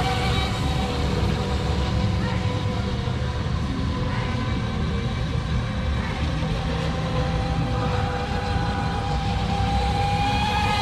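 Tenshock Mini Mono RC speedboat's brushless electric motor whining at speed as it runs across the lake. The steady high whine fades in the middle as the boat moves off and grows louder again near the end. A low rumble runs under it.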